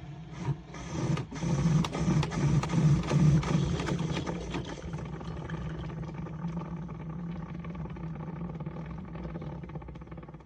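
Single-serve pod coffee maker brewing: its small water pump hums with rapid rattling clicks. Loudest in the first few seconds, then it slowly fades.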